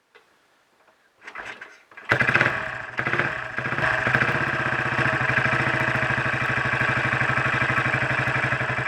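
Royal Enfield Bullet 500 single-cylinder engine being kick-started. It turns over briefly, catches about two seconds in, picks up about a second later and settles into a steady run. This is its first start after a full rebuild, and the ignition timing is still running quite retarded.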